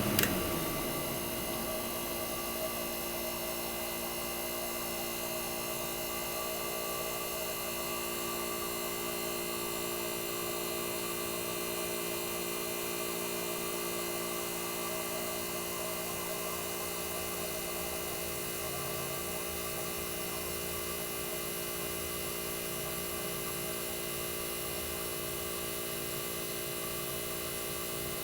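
The compressor of a 1965 Fedders Weather Wheel air conditioner running on its own with the fans switched off: a steady hum.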